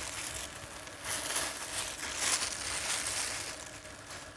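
A plastic food glove and paper napkins rustling and crinkling in uneven swells as crisp fried bánh chưng pieces are handled onto a plate.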